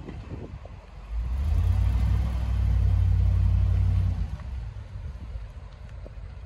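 2008 Ford F-350 truck pulling away and accelerating: a low engine rumble that swells about a second in, holds for about three seconds, then eases as the truck drives off.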